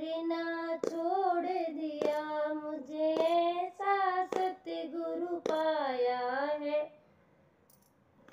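A Hindi devotional bhajan sung by a single voice, with hand claps about once a second keeping time. The singing breaks off about seven seconds in.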